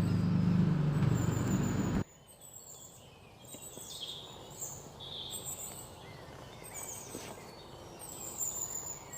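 Sparrows chirping, short scattered high calls coming every second or so. A low steady hum fills the first two seconds and then cuts off suddenly.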